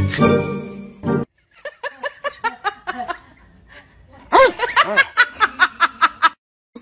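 Music cuts off about a second in. A rapid run of short, pitched, laugh-like vocal pulses follows, quiet at first and much louder from a little past the middle.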